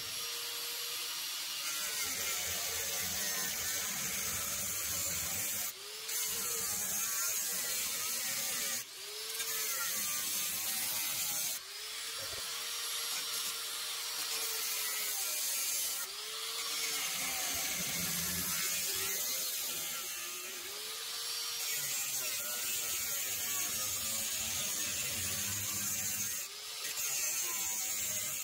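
Electric angle grinder with a cut-off disc running and cutting through the sheet steel of a truck's rusty cab corner. Its motor note sags and recovers again and again as the disc bites into the metal, with a bright hissing rasp from the cut and brief dips every few seconds where the cut eases off and resumes.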